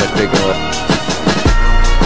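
Backing music with a steady beat; a deep bass note comes in about one and a half seconds in.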